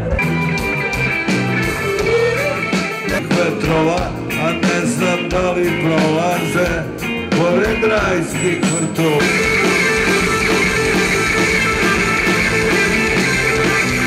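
Rock band playing live through a PA, with electric guitars and keyboards, heard from the crowd. The music jumps abruptly about nine seconds in where the recording is cut.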